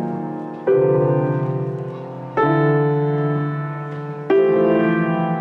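Background piano music: slow, sustained chords struck three times, about every two seconds, each left to ring and fade.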